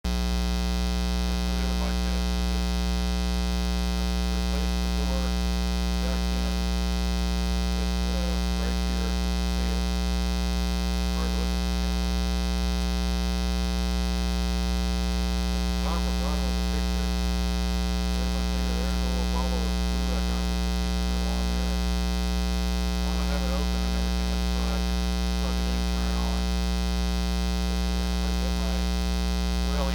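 Prosonic PQR 9962 boombox giving out a loud, steady mains hum with a dense row of overtones, the sign of a bad internal ground connection. Faint wavering sound comes through under the hum now and then.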